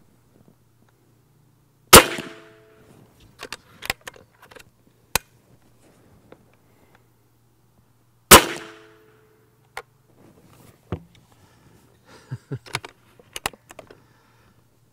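Benjamin Bulldog .357 big-bore pre-charged pneumatic air rifle, its receiver baffled, firing twice about six seconds apart: each a sharp crack with a short ringing tail. Lighter mechanical clicks and clacks come between and after the shots as the rifle is handled.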